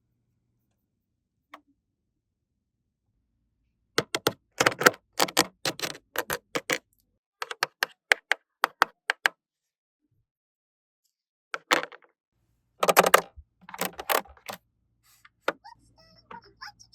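Small plastic toy pieces clicking and tapping as they are handled, in quick bursts of sharp clicks after a few silent seconds.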